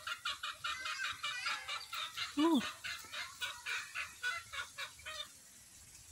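Chickens clucking in a fast run of short calls, about four or five a second, that stops about five seconds in. One louder, lower call rises and falls about two and a half seconds in.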